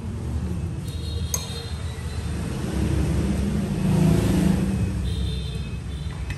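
Road traffic rumbling steadily, swelling as a vehicle passes about three to four seconds in, with one light clink about a second in.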